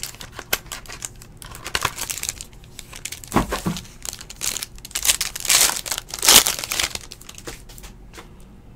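Foil wrapper of a trading-card pack crinkling and tearing as it is opened by hand, loudest a little past halfway. A dull knock about three and a half seconds in.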